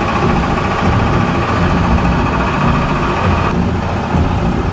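Fishing boat's engine running steadily, a loud low drone with water and hull noise over it; the higher hiss eases slightly about three and a half seconds in.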